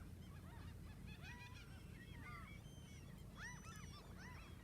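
Faint calls of a flock of birds, many short rising-and-falling calls overlapping one another, over a low steady rumble.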